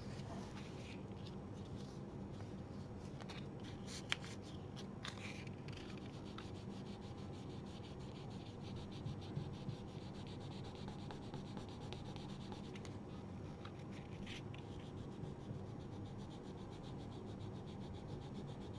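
Very fine 2000-grit sandpaper rubbed lightly over the painted surface of an acrylic icon board, a faint scratchy sound in a few spells of short passes, smoothing down a tiny raised spot before sealing. A low steady hum runs underneath.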